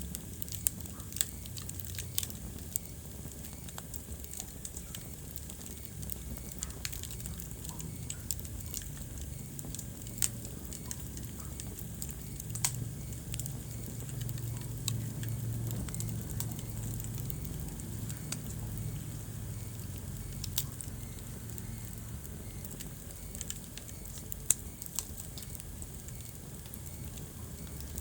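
Wood fire burning in a fireplace: irregular sharp crackles and pops over a steady low rumble of the flames, with a few louder pops scattered through.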